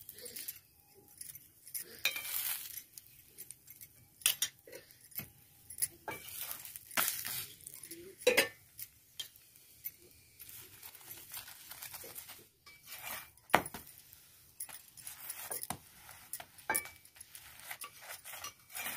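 Metal spatula scraping and tapping on an iron tawa as rotis are turned and pressed, with scattered clinks of metal pots and utensils.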